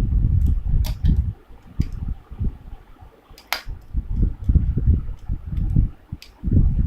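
Handling noise as laptop parts are moved about: irregular low bumps and rumbles with a few sharp clicks, the strongest about three and a half seconds in.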